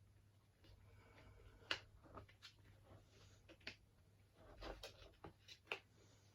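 Faint handling noise of a replica Brodie helmet liner and its fittings being worked by hand: scattered sharp clicks and short rustles, the loudest click about two seconds in and another near the end.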